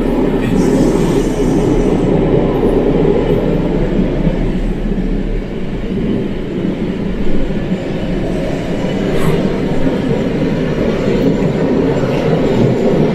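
Car-carrying shuttle train running along the track, a steady loud rumble of wheels on rail heard from a car riding on the train wagon.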